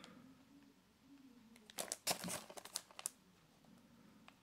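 Faint handling noise of a plastic Blu-ray case being turned over in the hands: soft rustles and crinkles, with a cluster of clicks about two seconds in and another about three seconds in.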